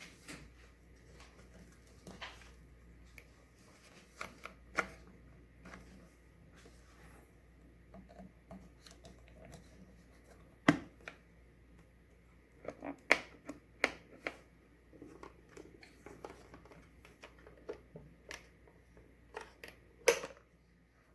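Handling noises: scattered clicks and knocks, the sharpest about halfway through and again near the end, with no motor running.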